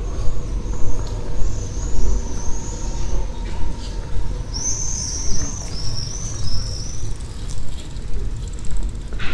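Town walking ambience: a steady low rumble with uneven swells. A songbird sings high, chirping phrases twice over it.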